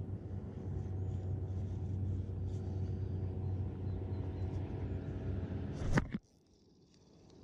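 A steady motor drone: a low hum with several steady tones above it. About six seconds in it ends with a sharp knock and drops away abruptly.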